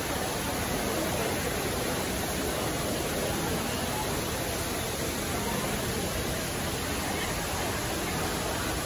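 Steady wash of ambient noise in a crowded glass-roofed hall: the murmur of many people talking blended with running fountain water.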